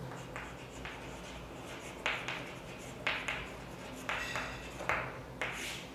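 Chalk writing on a chalkboard: a run of short, separate scratching strokes, with the loudest near two, three, four and five seconds in.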